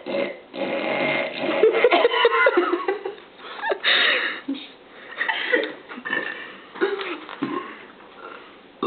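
A woman belching repeatedly, a string of several separate burps in a row.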